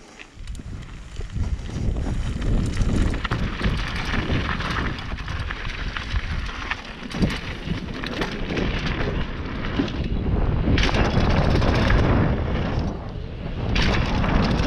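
Mountain bike rolling fast down a dirt trail: wind buffeting the camera microphone over tyre noise on dirt, with frequent knocks and rattles from the bike over bumps. It builds over the first couple of seconds as the bike picks up speed.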